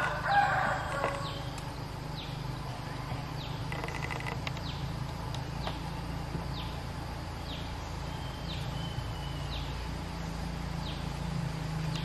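Stripe-throated bulbul giving a loud song phrase about a second long at the start. Thin, short descending whistle notes follow, repeating roughly once a second.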